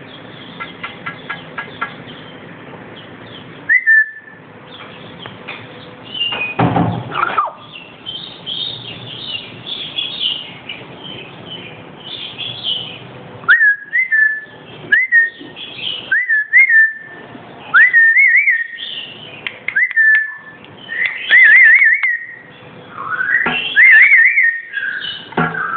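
Black-capped lory calling: chatter and a loud harsh squawk, then a run of short whistles, each sliding quickly up and settling on a steady note, about one a second, breaking into warbling trills near the end.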